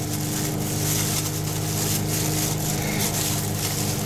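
Steady machine hum running without change, with light rustling as fiberglass cloth is pressed down by hand in plastic gloves.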